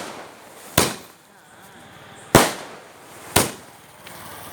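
Fireworks going off: three sharp bangs at irregular intervals, each dying away in an echoing tail.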